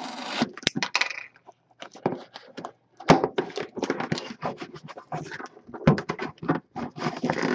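Hands working open a sealed, shrink-wrapped cardboard box of hockey cards: plastic wrap crinkling and cardboard rustling and scraping in many short, irregular bursts. The box is hard to open.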